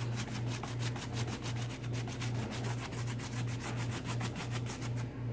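Flat paintbrush scrubbing quick back-and-forth strokes of paint over the rough, textured surface of a paper clay pumpkin: a rapid dry scratching of about eight strokes a second that stops just before the end. A steady low hum runs underneath.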